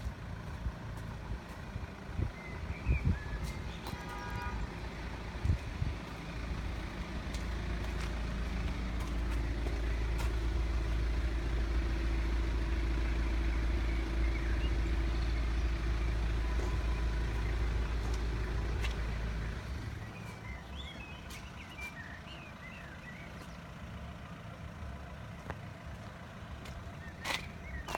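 Heavy road vehicle, likely a lorry, passing close on the road at the level crossing: a low rumble that builds over a few seconds, holds with a steady hum for several seconds, then fades away. A short beep comes about four seconds in, and birds chirp near the end.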